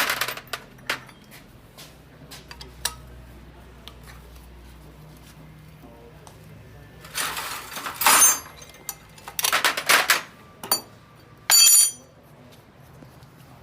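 Hard objects clinking and clattering: a sharp click at the start, scattered small clicks, then three louder rattling bursts in the second half, the last with a ringing metallic edge. A faint low hum runs underneath.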